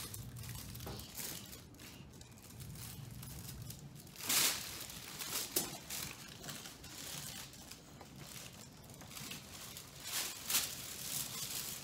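Paper cover of a medical exam table crinkling in scattered rustles as a toddler moves about on it. The loudest crinkle comes a little past four seconds in.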